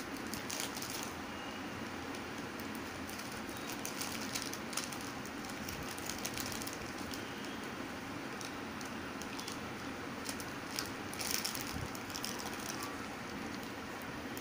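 Crinkling of a small plastic snack packet as a child handles it, with scattered crackles here and there, the most around two thirds of the way in, over steady room noise.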